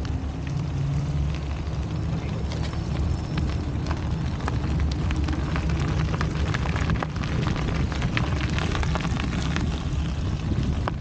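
Rolling noise from a bicycle and dog trailer riding over wet pavement: a steady low rumble with scattered crackles and clicks.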